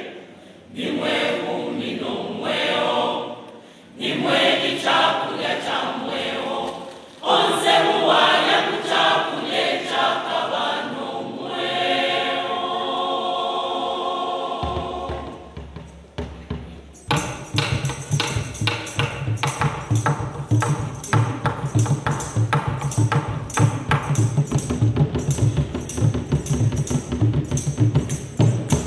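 Church choir singing in harmony, unaccompanied at first, with short breaks between phrases. About sixteen seconds in, large hand drums come in with a fast, steady beat under the voices.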